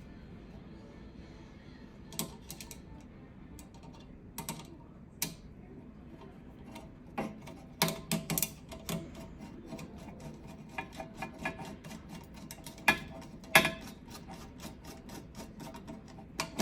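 Irregular clicks and light metal knocks of a screwdriver turning a screw and handling parts while the replacement oven igniter is fastened in place. There is a run of small quick ticks after about eleven seconds.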